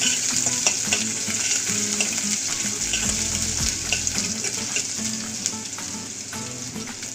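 Minced garlic and grated ginger sizzling in hot oil in a kadai with cumin, mustard seeds and curry leaves, stirred with a steel spoon. A steady frying hiss with small crackles, easing off slightly toward the end.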